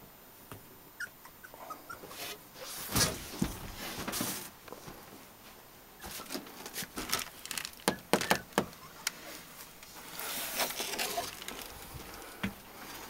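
Young puppies in a wooden whelping box giving a few faint squeaks and scrabbling on the bedding, among sharp knocks and rustles, loudest in the middle and latter part.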